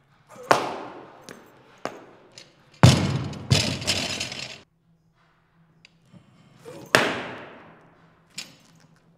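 Loaded barbell with bumper plates dropped onto a lifting platform: a heavy thud with a second bounce about half a second later. Sharper clanks with a ringing tail come before it and again a few seconds after.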